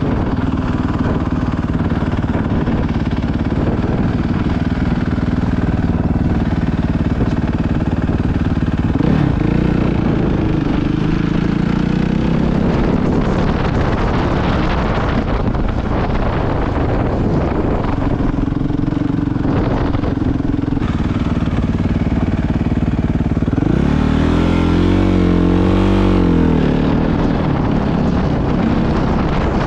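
Suzuki 450 dirt bike's single-cylinder four-stroke engine running close up while the bike is ridden, its pitch rising and falling with the throttle. About ten seconds in, and again a few seconds before the end, the engine revs up hard and drops back.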